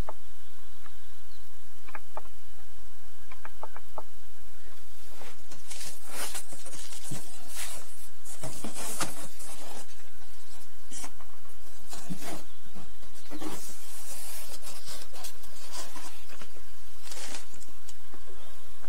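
Plastic wrapping and cardboard packaging rustling and crinkling in irregular bursts from about five seconds in, as a monitor is unpacked from its box, over a steady low hum. A few light clicks come before the rustling starts.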